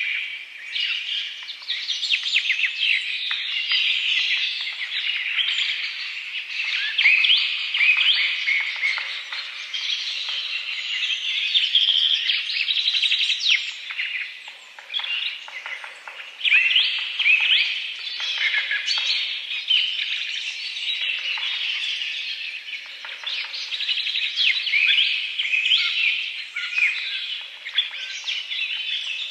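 Many small birds chirping and twittering at once: a continuous chorus of overlapping short, high calls that swells and eases.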